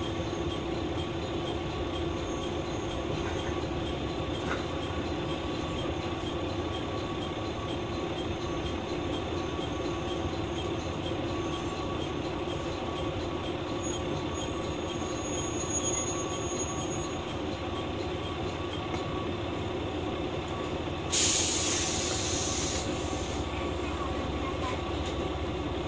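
Inside a JR West KiHa 120 diesel railcar running: the diesel engine and wheels on rail make a steady drone. A faint high squeal comes in briefly around the middle. A sharp burst of air hiss about two seconds long comes near the end.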